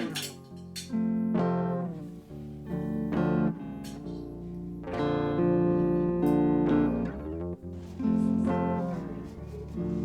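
Background music: plucked acoustic guitar playing a gentle chord progression.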